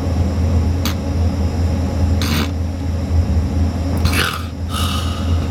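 A person imitating the obstructed breathing of a snorer with sleep apnea: short, harsh bursts of breath about two seconds in and again near four seconds, over a steady low engine rumble inside a vehicle.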